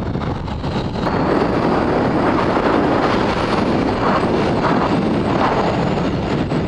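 Sport motorcycle riding at speed, heard as a steady rush of wind on the helmet camera's microphone with engine and road noise beneath it. It grows louder about a second in.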